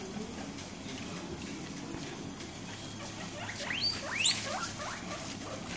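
Guinea pigs squeaking: a quick run of short, sharply rising squeaks a little past halfway through.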